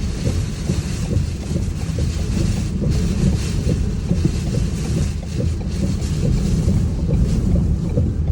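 Strong, gusty wind from a tornado's rear-flank downdraft buffeting a car, heard from inside the car as a loud, steady low rush that rises and falls.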